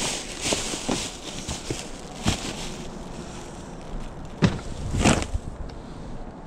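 Handling and rummaging noises from boxes of stored odds and ends such as cables: scattered knocks, clunks and rustling, the sharpest knock about four and a half seconds in, with another about five seconds in.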